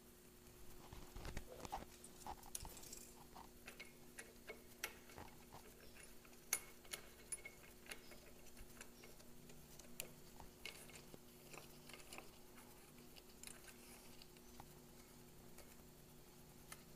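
Faint, irregular light clicks and taps of parts being fitted by hand onto a Ducati 748's dry clutch hub. The clicks come thick for the first few seconds, then only now and then.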